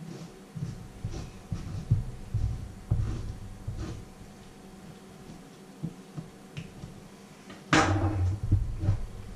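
A table knife scraping across a slice of bread on a wooden cutting board, with dull knocks of the board on the counter. Near the end comes a louder clatter as the knife is laid down on the board, followed by a few more knocks.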